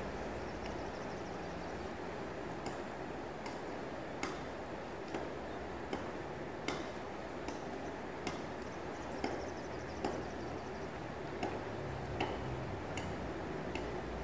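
A regular ticking, about one sharp tick every 0.8 seconds, over a steady rushing river noise.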